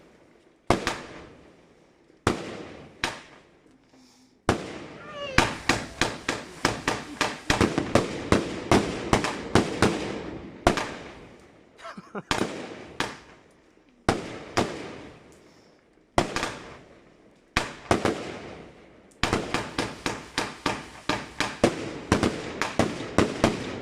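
Klasek Brocade War 88-shot firework cake firing its salutes: sharp, very loud bangs, first a few single shots, then rapid volleys of several bangs a second, then spaced single shots and another fast volley near the end, each bang trailing off in echo.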